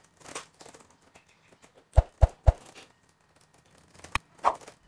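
A lull with a few sharp clicks: three in quick succession about two seconds in and another near the end.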